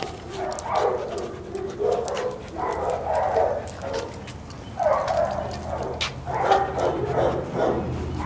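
Dogs barking on and off, a string of irregular barks.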